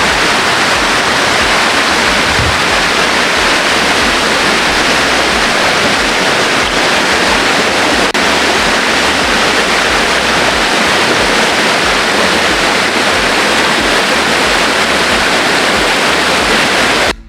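Rushing water: a steady, loud wash of a forest stream or cascade close by, cutting off suddenly near the end.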